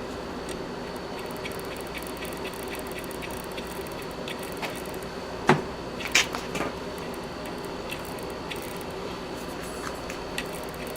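Small clicks, taps and squishes of hands working on a machine while oiling it, with two louder knocks a little past halfway, over a steady hum.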